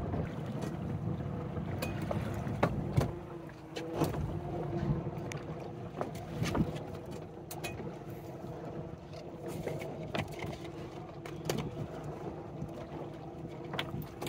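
Crab-pot buoy and line being handled on a small boat: scattered clicks and knocks over a steady background of wind and water on the hull, with a faint steady hum.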